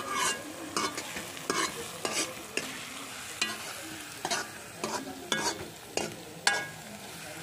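A steel ladle scraping and clanking against a steel kadai, about a dozen irregular strikes with a short metallic ring, as chillies, garlic and mustard seeds are stirred in hot ghee; a steady sizzle of the frying runs underneath.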